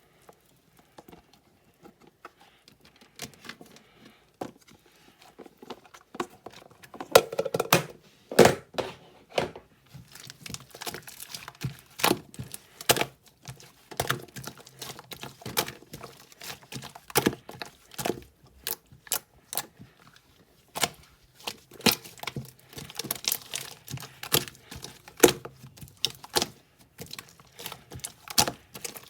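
Irregular sharp clicks, taps and crinkles of small objects being handled close to the microphone, sparse at first and coming thicker from about seven seconds in.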